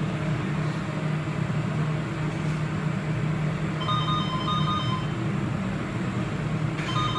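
Steady low hum of room noise, with a short run of electronic beeps in a simple tune about four seconds in, starting again near the end.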